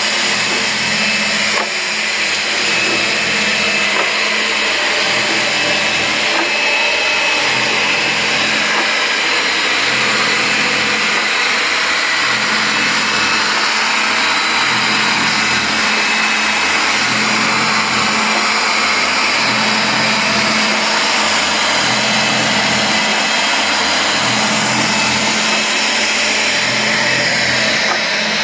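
Electric pipe threader running steadily while it spins an air compressor tank holding gravel and water, the gravel churning and rattling inside the steel tank. The low part of the sound rises and falls about every two seconds.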